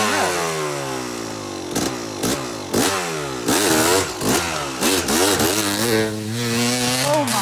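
Yamaha YZ250 single-cylinder two-stroke dirt bike engine revved in a quick series of sharp throttle blips, each rising and falling in pitch, then held steadier for a moment near the end before another rise.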